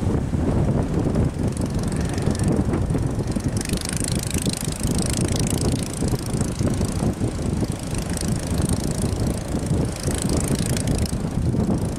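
Breaking surf with heavy wind buffeting on the microphone, and the hiss of waves crashing and spraying that swells twice, a few seconds in and again near the end.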